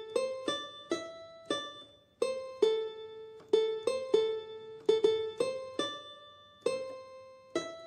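Background music: a light melody of single plucked notes, each starting sharply and dying away, at an unhurried pace of under two notes a second.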